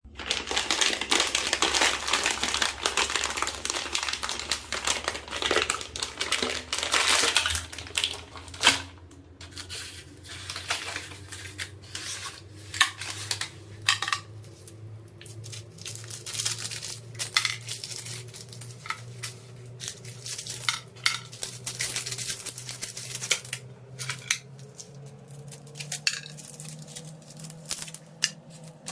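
A pestle grinding and crushing something hard in a mortar: dense continuous crunching for about eight seconds, then one loud knock, then scattered separate taps and clinks of the pestle against the bowl.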